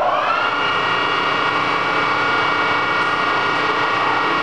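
Lodge & Shipley 21 x 80 heavy-duty engine lathe running its spindle: a whine that rises in pitch just after the start as the spindle comes up to speed, then holds steady.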